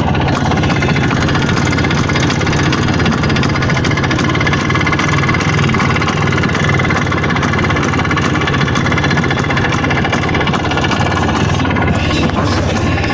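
IZh Planeta 5 motorcycle's single-cylinder two-stroke engine idling steadily with a hum and a slight ringing, which the owner wants to get rid of.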